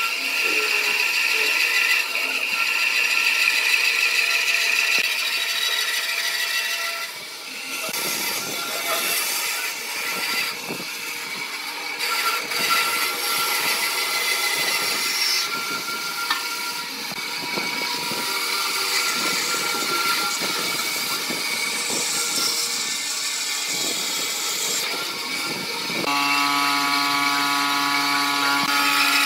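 Band saw cutting through thick pine blocks: the running motor and blade with a rough rasping as the blade chews through the wood. Near the end the blade runs free out of the cut and the sound settles into an even hum.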